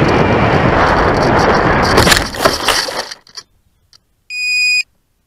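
Rushing airflow noise on the RC flying wing's onboard camera as the foam wing glides in low. About two seconds in it gives way to crackling and rustling as the wing touches down and slides into long grass, stopping about a second later. Near the end comes a single steady electronic beep lasting about half a second.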